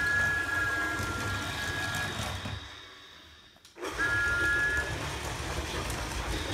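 Remote-control Thomas the Tank Engine toy driving across a wooden floor: a low motor and wheel rumble under a steady two-note electronic tone from the toy's speaker. The sound drops away about three seconds in and comes back suddenly, with the two-note tone again briefly.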